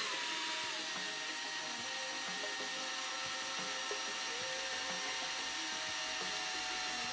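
Drill press running with a small twist bit cutting into a metal tube clamped in a vise: a steady motor whine and cutting noise, the tone dipping slightly about a second in as the bit bites, then holding steady.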